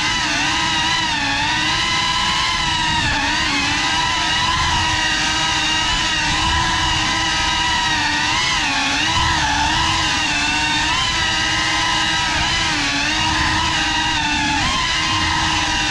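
FPV quadcopter's brushless motors and propellers whining steadily, the pitch rising and dipping again and again with throttle changes.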